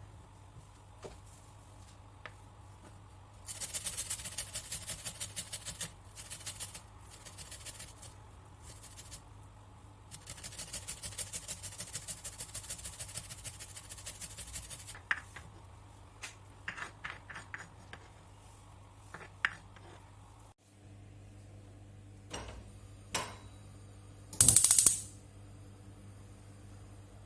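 Kitchen food-preparation sounds: two runs of quick, even strokes, then scattered clicks and a loud clatter near the end.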